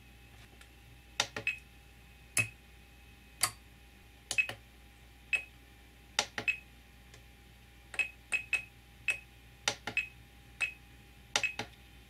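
Irregular sharp clicks of a Radiomaster TX16s transmitter's keys and scroll wheel being pressed while scrolling through its menus, about twenty of them, some followed by a short high ring.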